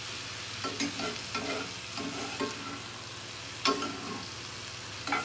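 Slotted metal spoon stirring and scraping sauced vegetables around a cast-iron skillet, over a low steady sizzle. The strokes come irregularly, with a sharper scrape about three and a half seconds in.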